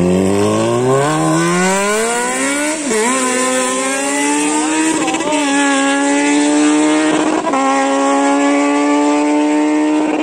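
Kawasaki Z900's 948 cc inline-four with an SC Project full-system exhaust, loud and accelerating hard: the note climbs, dips briefly at upshifts about three and five seconds in, then holds a steady high pitch at speed.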